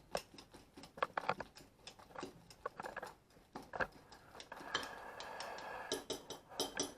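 A small whisk beating partly set, omelette-like scrambled egg in a jug: a quick, irregular run of light clicks and taps against the jug's sides, turning to a steadier scraping stretch about two-thirds of the way through.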